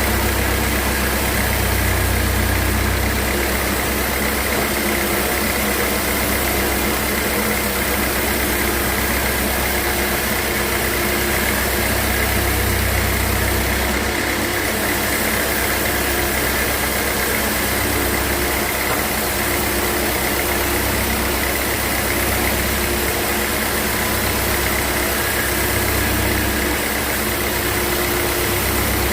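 Sawmill machinery running steadily: a constant motor hum with a high whine, the low rumble swelling and easing every few seconds.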